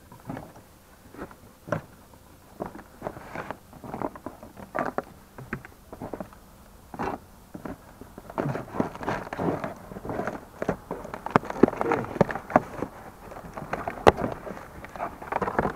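Cardboard box and packing being handled: cardboard inserts scraping and flexing, plastic wrap crinkling, and irregular knocks as a diesel heater unit is set back into its box. The handling gets busier and louder over the second half.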